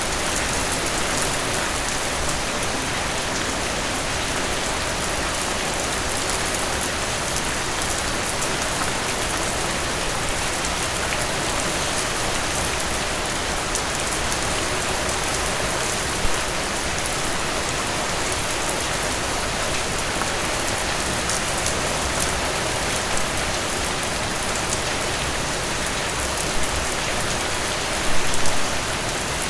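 Steady rain falling on a surface, an even patter with a few louder individual drops, briefly loudest about a second before the end.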